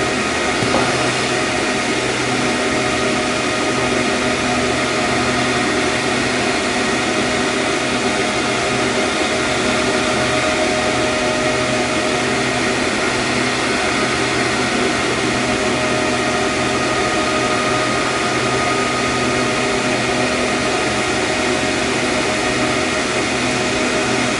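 Electric air blowers of a Bernoulli ball-levitation exhibit running steadily: a constant rush of air with a few steady tones in it.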